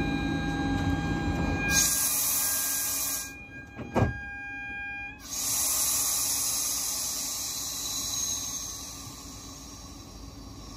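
Train standing at a station platform, heard from inside: a steady hum and high tones, loud spells of air hiss, and one sharp thud about four seconds in.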